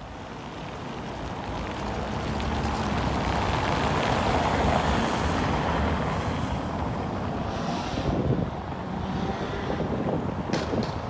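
A road vehicle passing by, its tyre and engine noise swelling to a peak about four to five seconds in and then fading away.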